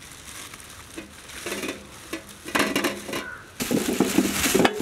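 Plastic bag crinkling as raw potatoes are tipped out of it, the potatoes knocking and rolling onto a large metal tray. The sound builds and is loudest near the end.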